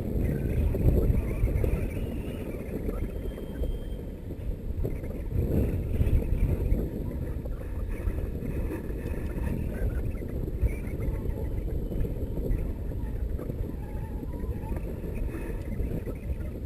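Wind rushing over the microphone in flight: a steady low rumble that swells and dips in gusts.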